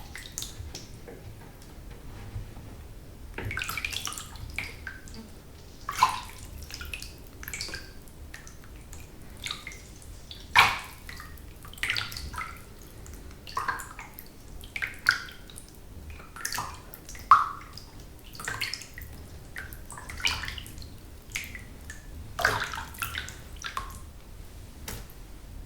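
Bathwater splashing, sloshing and dripping in a bathtub as someone bathes, in irregular plops and splashes every second or so over a low steady rumble.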